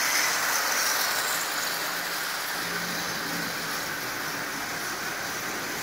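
Electric tinplate toy train running along three-rail track, a steady rolling rattle with a faint motor hum, easing off a little as the train passes close and then moves away.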